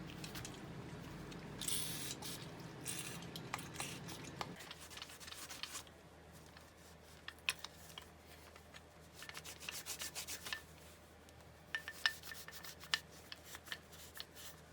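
Rubbing and scrubbing strokes while a vise part is cleaned off, for about four and a half seconds, followed by scattered light clicks, taps and short scratchy strokes of handling.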